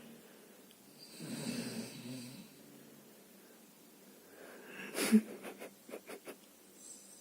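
A sleeping person snoring: one drawn-out snore about a second in, then a shorter, sharper snore near five seconds followed by a few faint clicks.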